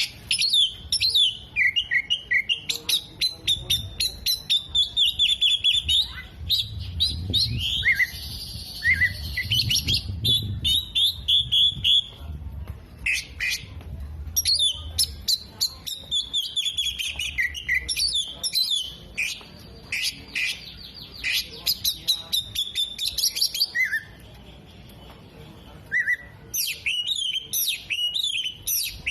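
Oriental magpie-robin (kacer) singing a long, varied song of rapid sharp clicks, chattering runs and whistled phrases, worked through with mimicked calls of sunbirds, bearded birds and lovebirds. There are brief pauses about twelve and twenty-four seconds in.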